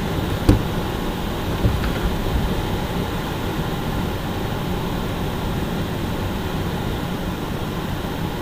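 Steady rushing cockpit noise of a light aircraft in flight on approach, with a sharp knock about half a second in.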